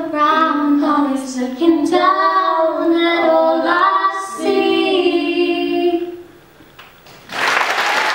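Two teenage girls singing together, ending the song on a held note about six seconds in. After a brief hush, audience applause breaks out near the end.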